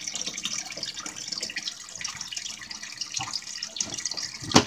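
Water trickling and splashing steadily in a turtle tank, a continuous fizzy patter, with one sharp click near the end.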